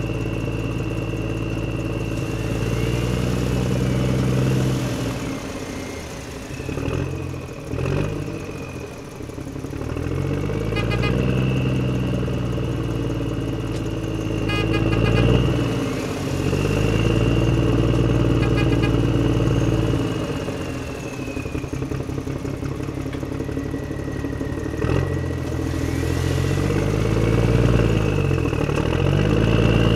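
An engine running, its pitch dipping and rising again several times as if revving down and up, with a steady high whine above it.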